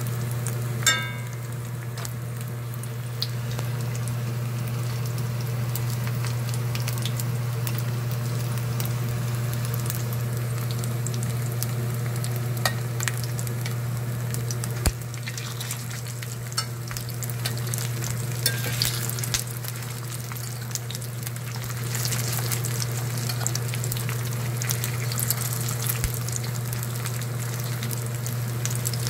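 Battered pork pieces for guobaorou sizzling and crackling as they fry in oil in a steel pan, over a steady low hum. Metal tongs clink against the pan now and then, with a short ringing clink about a second in.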